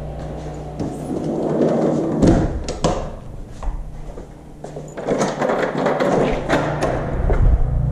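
A door being opened and shut, with several thuds and sharp latch clicks.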